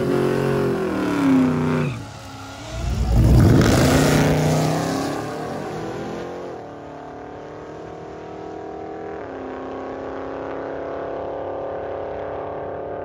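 Blue Chevelle drag car's engine at full throttle, climbing in pitch twice with a short dip between, then running on down the drag strip more quietly and steadily, with drops in pitch about six and nine seconds in as it shifts gears.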